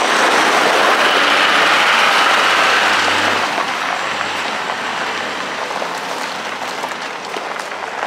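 Toyota Land Cruiser driving, its tyres and engine making a steady noise that fades over the second half.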